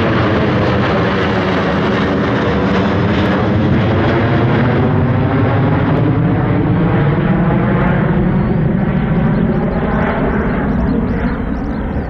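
Boeing 737-900ER's CFM56-7B jet engines at climb-out thrust as the airliner passes overhead and flies away: a loud, steady jet noise whose tones slide down in pitch as it passes, easing off slightly near the end.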